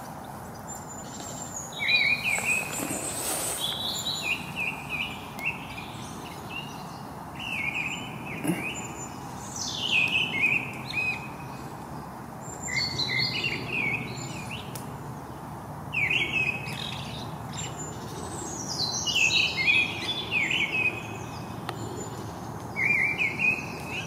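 Thrushes singing, a mistle thrush and a song thrush: loud short phrases repeated every second or two, with faint twittering of other woodland birds behind them.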